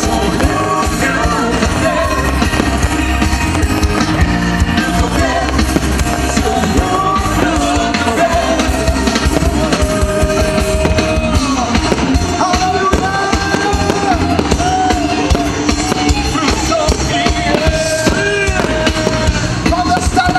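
Music with a singing voice over a steady bass beat.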